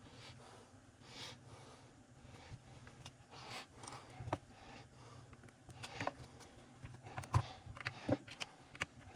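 Scattered light clicks and knocks of hands and tools handling the parts of an Echo CS-3000 chainsaw during a teardown. The two sharpest knocks fall near the end. A faint, steady low hum runs underneath.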